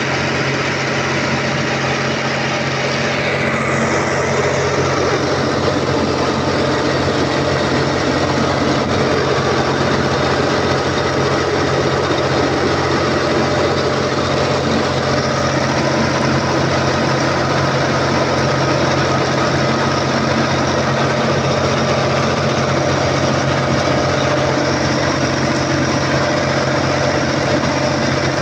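Volvo Penta TAD1341GE inline-six turbocharged diesel genset engine running steadily after a fresh top overhaul. A high whine falls in pitch about three seconds in and then settles.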